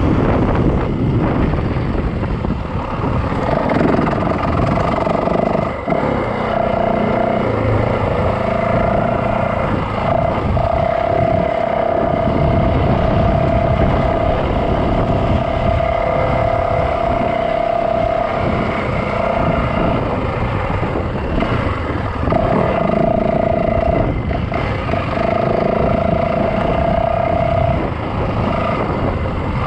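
Yamaha dirt bike engine running while riding along a trail. A steady tone holds its pitch for long stretches and breaks off now and then, over a constant rush of noise.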